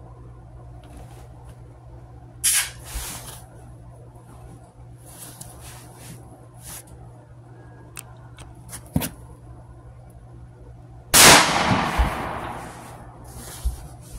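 A single very loud gunshot about 11 seconds in, its echo fading over about two seconds: a shot at a deer. Before it come a few soft clicks and knocks.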